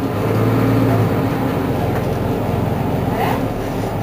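Mercedes-Benz Citaro G articulated bus engine running steadily while the bus stands still, with a low hum that swells over the first second and then holds. A short higher-pitched sound comes near the end.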